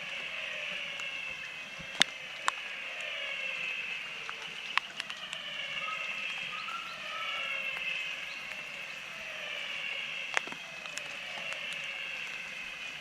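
Chorus of frogs after rain: many overlapping short calls, each falling in pitch, repeating without a break. A few sharp drips of rainwater tick now and then.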